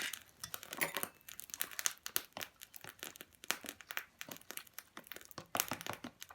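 Irregular crackling and popping from food frying in a small pan over a wood fire, with many short, quick pops of varying loudness.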